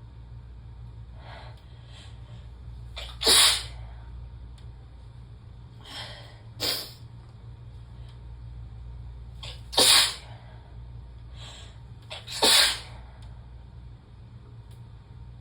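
A woman sneezing in a fit set off by chhinkni sneezing powder: four sharp sneezes, three loud and one smaller, spaced a few seconds apart, with faint breaths between them.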